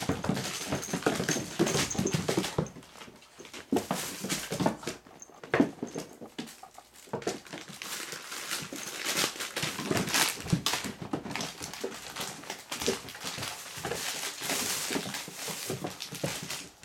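Doberman puppies playing and scuffling on a wooden floor, whimpering, amid many small clicks and knocks.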